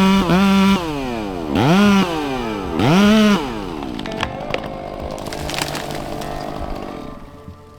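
Chainsaw running at full throttle, then let off to idle about a second in and blipped twice, each rev rising and falling. It then idles with a few sharp cracks and fades near the end.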